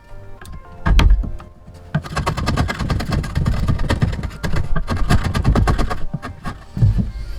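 Impact driver driving a screw into 2x4 lumber: a rapid rattling hammer lasting about four seconds. A single heavy wooden thunk comes about a second in, and more thuds near the end.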